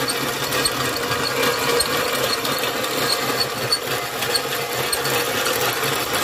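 Hand-crank meat grinder driven by a cordless drill through a bicycle sprocket and chain, running steadily. There is a steady motor hum, the chain and gears rattle, and light clicks repeat at an even pace.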